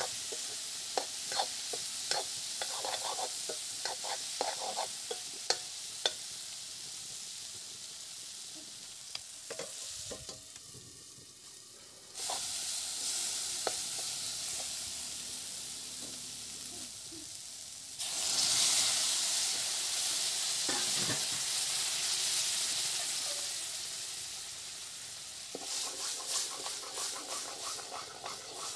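Onion-tomato masala sizzling in hot oil in a metal kadai while a metal spatula stirs it, scraping and clicking against the pan. Past the middle the sizzle surges louder as water goes into the hot masala, and stirring goes on in the bubbling liquid.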